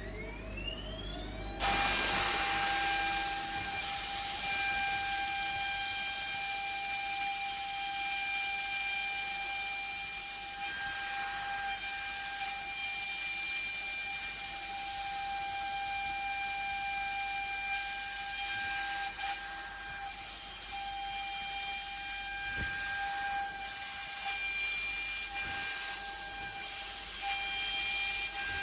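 Rotary CNC router's spindle at work: a rising whine for the first second and a half, then the cut starts sharply into a steady, high-pitched whine over a loud hiss that holds to the end.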